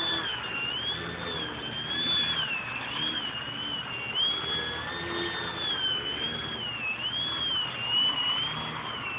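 Electric motor and 9x4.7 propeller of a small Twisted Hobbies EPP foam 3D aerobatic RC plane, running on a 2S battery. It gives a steady high whine whose pitch swings up and down about every second as the throttle changes during aerobatics.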